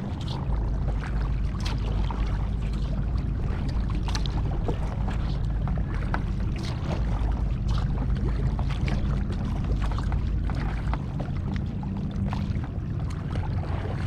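Kayak paddling: water splashing and dripping off the paddle blades with each stroke. Under it is a steady low rumble, likely wind on the microphone, which eases about eleven seconds in.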